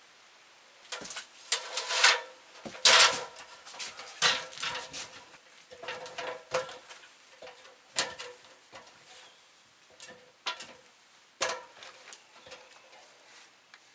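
Aluminium extension ladder being moved and set against wooden wall framing, then climbed: a run of irregular metallic clanks and knocks that ring briefly, the loudest about three seconds in, thinning out toward the end.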